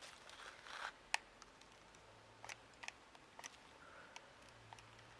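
Faint, scattered sharp clicks, about half a dozen over a few seconds: a hot glue gun's trigger being worked as the gun fails to feed glue.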